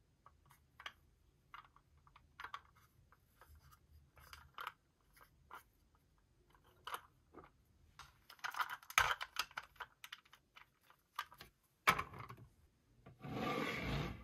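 Handling noises of a toy and its packaging: scattered small clicks and rustles, a stretch of rubbing about two-thirds of the way in, a sharp knock, then a steady scrape lasting about a second near the end.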